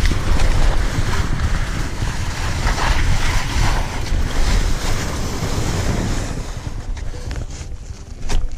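Wind buffeting the microphone over a steady hiss of skis sliding on spring corn snow during a fast downhill run. The noise eases in the last couple of seconds, and a single sharp knock comes near the end.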